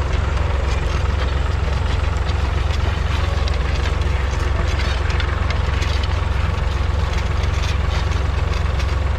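A David Brown 780's 2.7-litre three-cylinder diesel engine running steadily, with a deep, even drone.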